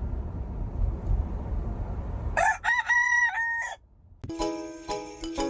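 Low rumbling noise, then about two and a half seconds in, one drawn-out animal call of several connected held notes, about a second and a half long. Near the end, music with bell-like tones starts.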